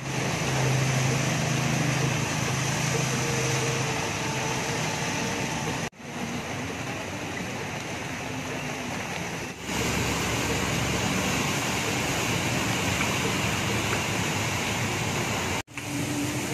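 Traffic through a flooded street: motorbike engines running over a steady wash of water noise from wheels moving through the flood. The sound breaks off sharply twice, about six seconds in and near the end.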